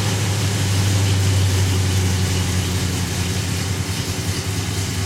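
A 1968 Dodge Charger's engine idling steadily, kind of loud, its low note easing slightly about three seconds in.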